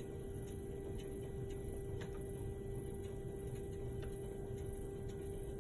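Electric pottery wheel running at slow speed: a steady motor hum with faint, regular ticks about twice a second.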